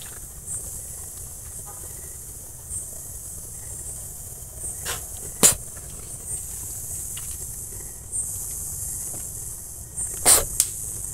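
Steady high-pitched chirring of night insects, swelling every second or so. A sharp click cuts through about five seconds in, and two more come close together near the end.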